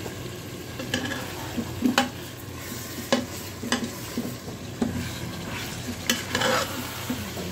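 Metal ladle stirring mutton and tomato masala in an aluminium pressure cooker, scraping and knocking against the pan about once a second, with the masala sizzling steadily underneath.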